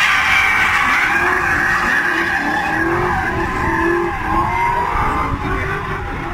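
Two drift cars sliding through a corner in tandem: tyres screeching and engines revving. The tyre screech is loudest at first and eases after about four seconds as the cars pull away.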